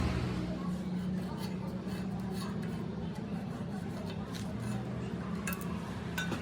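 Scattered light metallic clicks and taps over a steady low hum.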